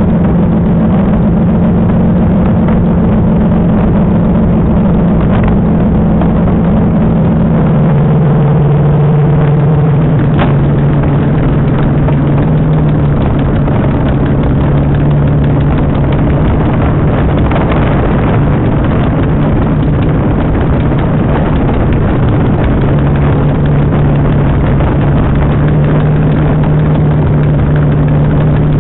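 Spitfire's Rolls-Royce Merlin V12 engine running at low power on the ground, heard from the open cockpit with propeller and air noise. Its pitch drops a little about eight seconds in and rises slightly again later on.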